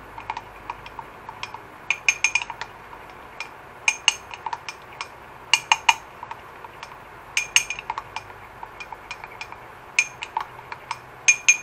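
A metal spoon clinking against the sides of a small cup while stirring coconut milk powder into mackerel broth to dissolve it. The clinks come in quick runs of several strikes every second or two, each with a short bright ring.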